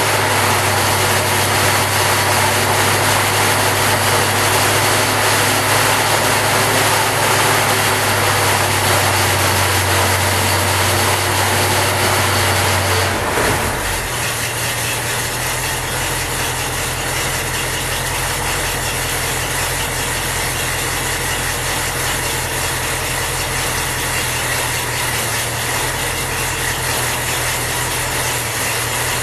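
Rebuilt 1927 Cadillac 314 V8 engine running steadily. About halfway through, its note shifts and it runs a little quieter.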